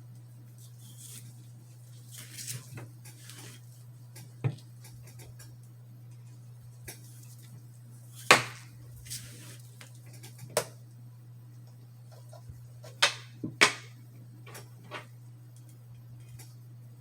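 Scattered sharp metallic clinks and knocks, with a few soft rubbing sounds, from handling a single-action revolver and its cleaning tools during cleaning. The loudest clink comes about eight seconds in and a close pair about thirteen seconds in, over a steady low hum.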